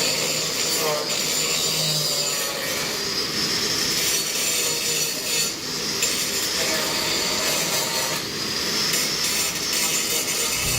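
Power tool grinding into rusty sheet steel on the van body: a continuous grinding noise with a wavering high whine.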